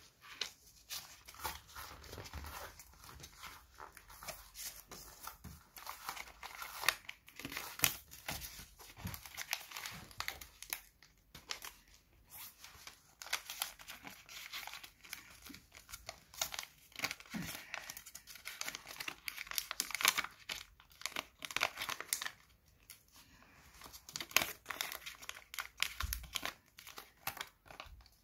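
Coloured paper crinkling and rustling as it is folded and creased by hand into a paper airplane, in quick irregular crackles with short pauses.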